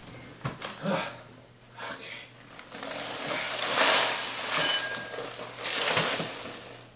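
Wheaties cereal flakes poured from the cardboard box into a small bowl: a rustling, rattling pour in a few surges lasting several seconds, after a few light knocks as the box is handled.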